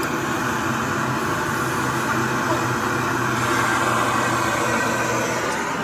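A steady low mechanical hum under a constant noisy hiss, holding the same level throughout.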